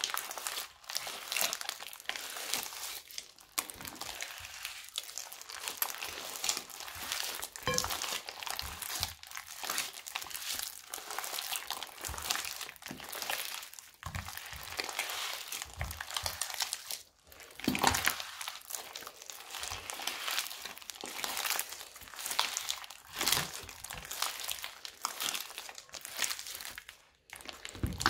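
Crunchy slime filled with small beads being kneaded, squeezed and stretched by hand: a dense, continuous crackling of tiny pops, with a few louder pops here and there.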